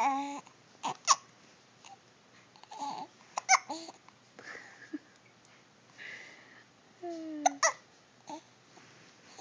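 A baby hiccupping: several sharp, squeaky hiccups that sound like a squeaky toy, with short babbling vocal sounds between them.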